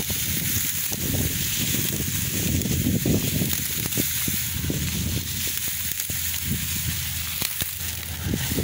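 Continuous dry crackling and rustling of ripe grain stalks, many small irregular crackles at a steady level.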